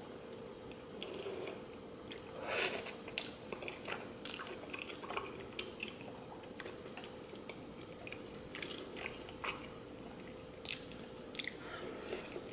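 Quiet eating: slurping and chewing thick noodles and chewy rice cakes in spicy sauce, with light clicks of wooden chopsticks against a nonstick pan. The loudest moment, a soft slurp, comes about two and a half seconds in.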